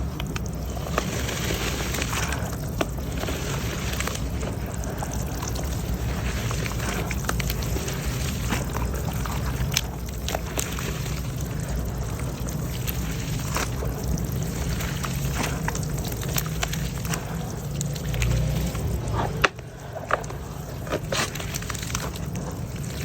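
Wet mud and concrete crumbling into water: a continuous crackling, trickling wash with scattered sharp little cracks, dipping briefly near the end.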